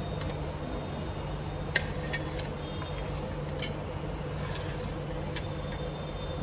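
Steel utensils clinking: a sharp metal clink about two seconds in, then a few lighter taps, as roasted brinjals are set down on a steel plate. Under it runs a steady low hum.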